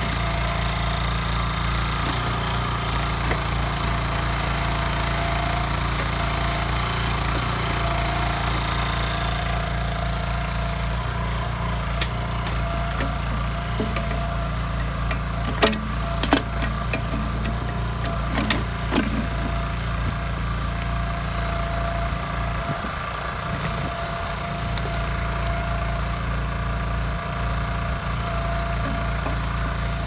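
Kellfri ATV backhoe's engine running steadily while it digs, with a few sharp knocks around the middle as the bucket works in the pit.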